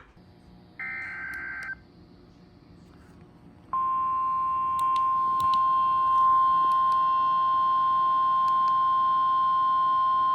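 A short burst of weather-radio SAME data tones about a second in, then, nearly four seconds in, the NOAA Weather Radio 1050 Hz warning alarm tone starts and holds steady and loud.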